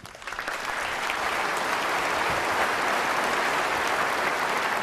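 Audience applauding, building up over the first half second and then sustained and steady.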